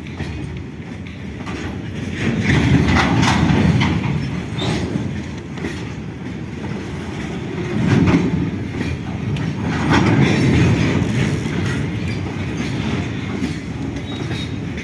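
A train passing close by, its wheels rumbling and clacking over the rail joints, swelling in loudness a few times as it goes.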